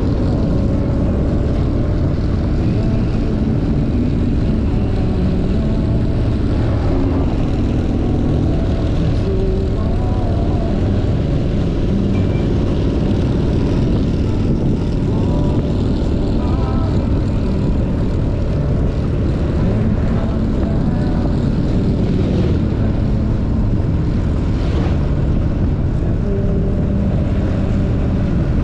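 Motorcycle riding at highway cruising speed: a steady engine drone buried under heavy wind rush on the microphone, with no break or change in pace.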